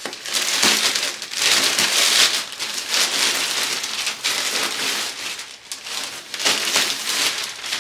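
Crinkling and rustling of a shipping package being torn open and unwrapped by hand, in irregular swells.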